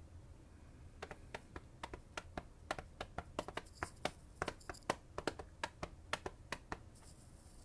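Typing on a computer keyboard: a run of sharp, irregular key clicks, several a second, that stops near the end.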